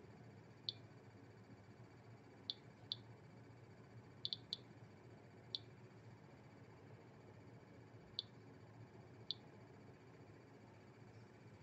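Geiger counter kit's piezo buzzer giving short, high clicks at irregular intervals, about nine in eleven seconds, including a quick cluster of three about four seconds in. Each click is one particle detected by the Geiger–Müller tube, at an ordinary background radiation level of about 25 counts per minute.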